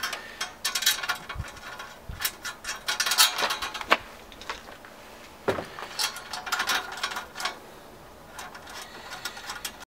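Screwdriver and small metal screws clicking and ticking against aluminium mounting brackets as the brackets are screwed onto a diverter plate. The clicking comes in quick runs with a lull around the middle, and cuts off suddenly just before the end.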